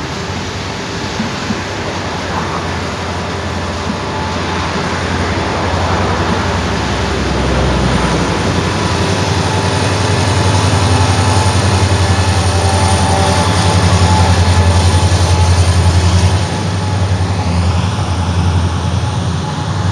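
Freight train passing close: wagon wheels rumbling and clattering on the rails, then the rear pushing diesel locomotive goes by, its low engine drone building to the loudest point and dropping away suddenly about sixteen seconds in.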